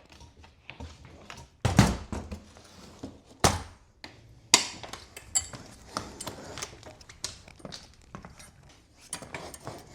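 Objects being handled and set down: a string of clattering knocks and clicks, the loudest knocks about two, three and a half and four and a half seconds in.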